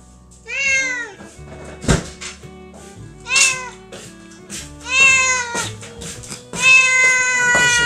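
Calico cat meowing four times while made to wait for its food, the last meow long and drawn out; a sharp click about two seconds in. Faint background music underneath.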